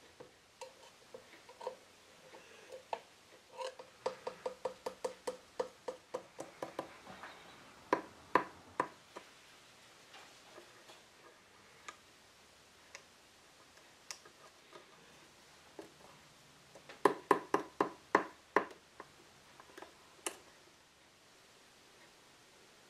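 Thin metal blade picking and scraping old glue out of a wooden joint: short sharp clicks and scratches in bursts, a quick run of several a second, then scattered single clicks, then a tight cluster later on.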